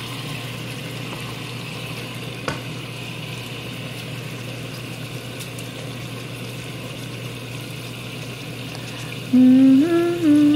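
Chicken thighs and ginger sizzling steadily in a frying pan, with one light click of a utensil a couple of seconds in. Near the end a voice comes in with a few held notes.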